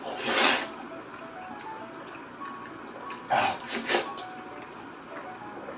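Wet slurping of black-bean-sauce noodles being sucked into a full mouth, in two short bursts: one near the start and another about three seconds later.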